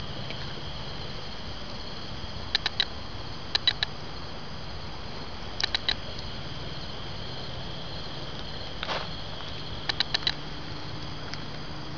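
Crickets chirping outdoors in short groups of three or four quick, high pulses, repeated at irregular intervals over a steady low hum and hiss.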